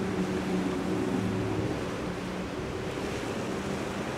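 Surf and wind noise on the microphone, with the low steady drone of a boat's triple Yamaha 300 outboard engines that fades out a little over two seconds in.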